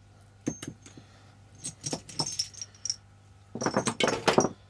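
Small metal hand tools being handled, clinking against one another with short high metallic rings: a few light clicks, then a run of clinks, and a louder jangling clatter near the end.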